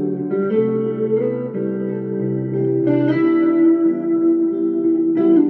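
Clean hollow-body archtop electric guitar playing a slow passage of chords and single notes that ring on into each other. A brighter, harder-struck chord comes about three seconds in, and another near the end.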